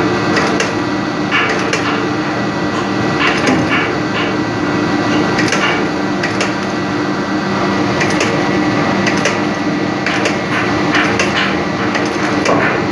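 Steady drone of engine-room machinery with several held tones, overlaid by irregular sharp metal clinks and taps from hand tools and hoist chain as mechanics fit a cylinder liner into a main diesel engine.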